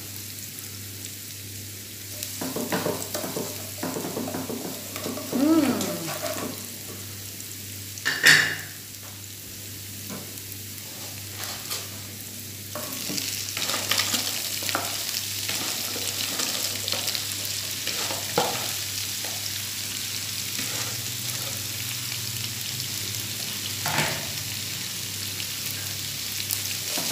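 Stir-frying in a nonstick frying pan: a plastic spatula scrapes and turns sizzling shallots, garlic and chili in hot oil, with a sharp knock about eight seconds in. About thirteen seconds in, the sizzle turns louder and hissier as shredded cabbage goes into the pan.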